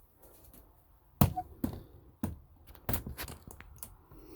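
About five sharp knocks and clunks, spaced unevenly, like hard objects being handled and set down.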